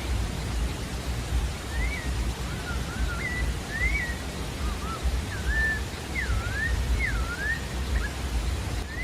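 Pale-breasted thrush singing a run of short, slurred whistled phrases that rise and fall in pitch, from about a second and a half in until near the end. Under it runs a steady low rumbling hiss.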